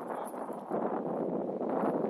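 Wind buffeting the microphone: an uneven, gusting rumble-hiss that swells and eases.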